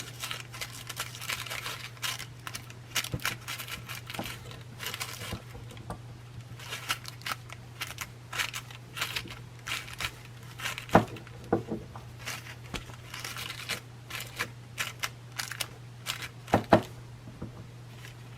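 Crinkling and rustling of a piece of gold leaf and its paper being handled and pressed onto the work, with many scattered small crackles, over a steady low hum.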